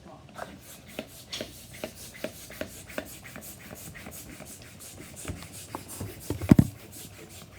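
Hands handling paper, tape and a balloon at a work surface: irregular rubbing and small clicks, with one louder thump about six and a half seconds in.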